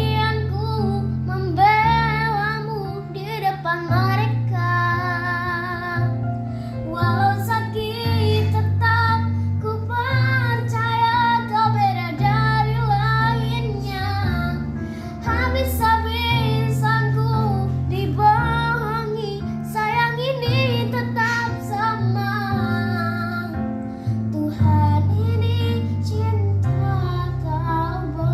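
A child singing a song over instrumental accompaniment with steady held low notes.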